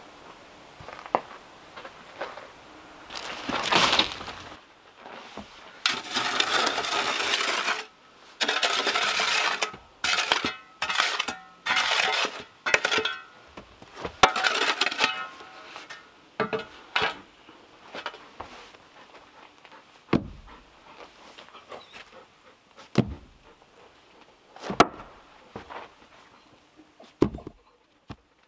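Steel shovel scraping and scooping gritty soil in a series of strokes. In the second half, several dull knocks as wooden log rounds are set down on the ground.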